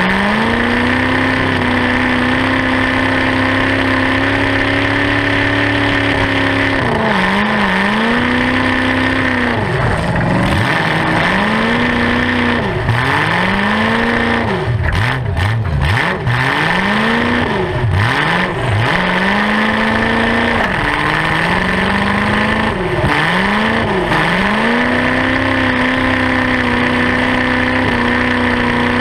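Demolition derby car's engine running loud through open upright headers. It is held at steady high revs, then repeatedly drops and climbs again as the throttle is worked through the middle stretch, and settles back to steady revs near the end.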